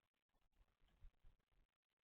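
Near silence: faint background hiss with a few faint low rumbles.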